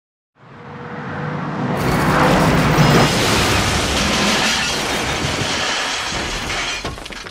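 Action-film sound effects for a car stunt: a loud, long rush of crash-and-blast noise that swells in over about a second and a half, holds steady, and begins to fade near the end.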